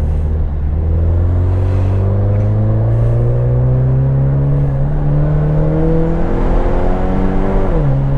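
A car's V6 engine accelerating, heard from inside the cabin. Its pitch climbs slowly and steadily for about seven seconds, then drops sharply near the end as the gearbox shifts up.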